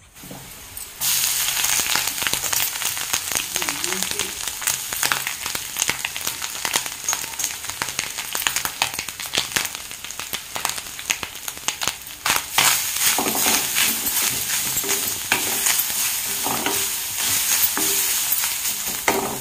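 Garlic, dried red chillies and spice seeds frying in hot oil in a kadai, with a dense sizzle and crackle that starts suddenly about a second in. Later grated coconut fries in the pan as a wooden spatula stirs it.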